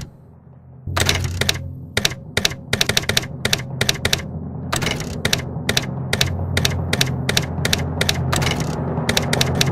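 Typewriter keys clacking in quick, irregular runs of strikes with short pauses, over a low steady hum.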